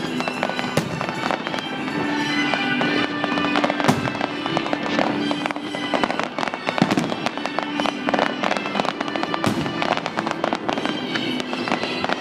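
Fireworks bursting in quick succession, with many sharp bangs and crackles and heavier booms about four and nine and a half seconds in. Music with held notes plays along underneath.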